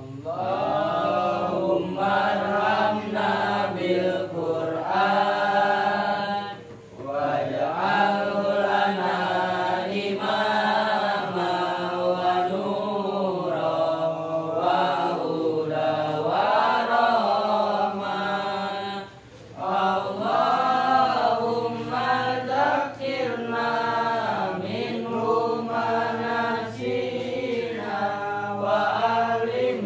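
A man chanting a religious text in long, wavering melodic phrases, in the style of Quran recitation. He breaks for breath about six and a half seconds in and again around nineteen seconds.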